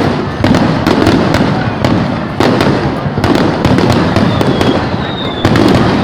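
Aerial fireworks going off in a rapid, continuous string of bangs and crackles, with several louder reports and a faint whistle of a rising shell about four to five seconds in.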